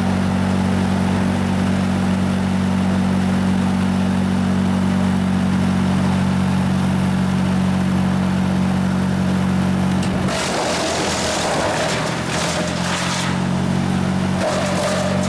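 Diesel engine of a mobile wood chipper running at a steady speed. About ten seconds in, a rough, hissing rush of chipping noise lasts some three seconds while the engine note sags under the load, and it comes again briefly near the end.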